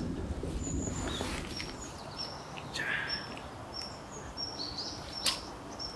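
A small bird repeating short, high chirps, about two a second, over low outdoor background noise, with a single sharp click about five seconds in.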